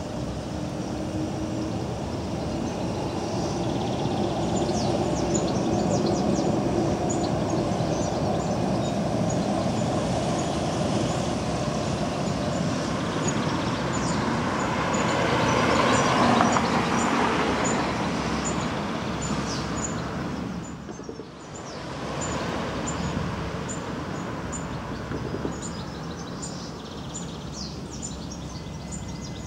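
Street traffic noise that swells to a pass-by about halfway through, as a green low-floor tram rolls along its track, then fades. Birds chirp over it, more densely near the end, and the sound drops out briefly about two-thirds of the way in.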